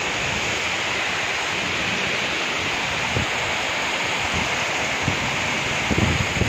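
Heavy rain pouring down in a steady, dense hiss, with wind gusts buffeting the microphone in short low rumbles, most of them near the end.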